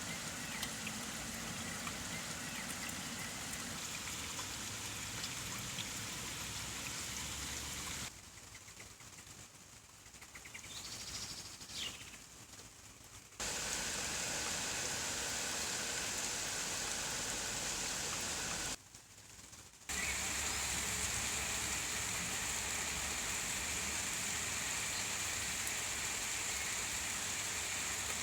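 Steady rain falling, an even hiss. About eight seconds in it drops abruptly to a much quieter stretch with a faint chirp near its end, then comes back just as abruptly; it drops out again briefly about two-thirds of the way through.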